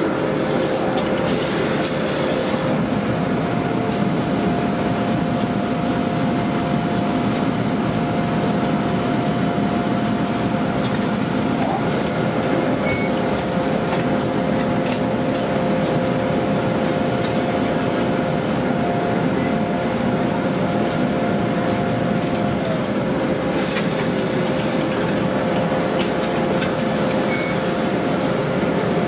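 Automatic shirt-ironing machines and other laundry-press machinery running with a steady mechanical hum and a constant whining tone. A second, higher tone joins about three seconds in and slides down and stops about three-quarters of the way through, and a few brief sharp sounds cut through.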